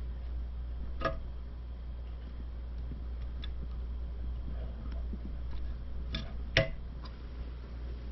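Sharp clicks of a new toilet tank lever's chrome handle and arm being fitted and worked at the tank: one about a second in, then three close together near the end, the middle one the loudest. A steady low hum runs underneath.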